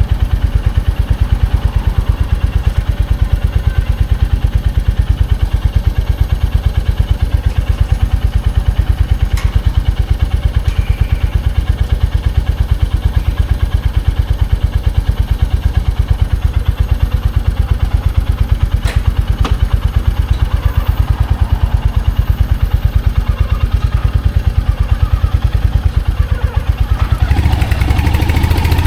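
Royal Enfield Hunter 350's single-cylinder 349 cc engine ticking over with an even, steady thump that holds the same pace. Near the end the sound grows louder and busier.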